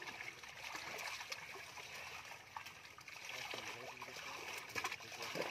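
Pond water splashing and trickling around a net crowded with live fish as they are picked out by hand, with scattered sharp splashes and a few louder ones near the end.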